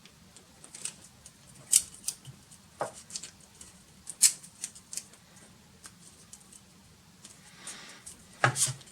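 Masking tape being torn off and pressed around a rolled cardboard tube: scattered sharp clicks and crackles, a faint brief rip near the end.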